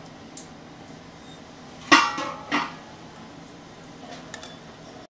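Two sharp clinks on a plate about two seconds in, less than a second apart, as the wooden skewer pulled from a fried chicken wing is dropped onto the serving plate. Faint restaurant room noise underneath.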